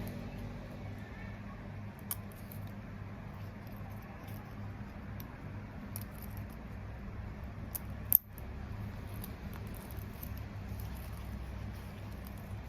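Handling noises of a phone bag strap: scattered small clicks and rustles, with one sharp click about eight seconds in, over a steady low hum.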